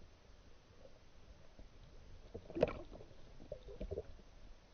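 Sea water sloshing and lapping around a diving camera held at the surface, muffled, with one sharper thump a little past halfway and a few softer knocks after it.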